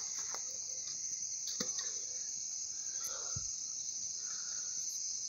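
Steady high-pitched chorus of night insects, with a few faint crackles and a soft thump from the wood fire under the grill.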